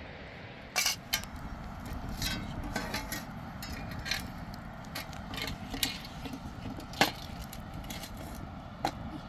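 Irregular clicks and knocks, as of hard objects being handled, over a steady low background noise; the sharpest come about a second in and near seven seconds.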